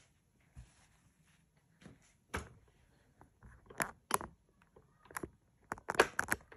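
Scattered handling noises: short light knocks and rustles, about a dozen, with a loudest cluster about six seconds in, from cloth and the phone being handled.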